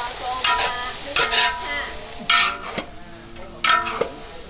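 Long-handled metal spatula scraping and tossing leafy greens in a large steel wok, four strokes over a steady sizzle as the greens fry.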